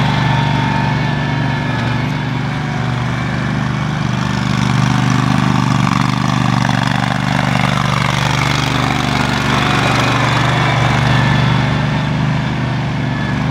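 Power King 1620 lawn tractor's engine running steadily as the tractor drives across grass.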